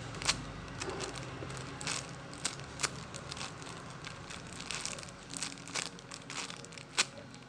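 Pancake squishy toy being handled and squeezed close to the microphone: irregular crinkling with scattered sharp clicks.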